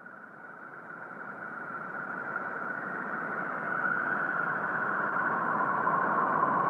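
Eerie 'planet sound' drone, a hissing, whistle-like band that fades in from silence and keeps swelling, its pitch sinking slightly near the end.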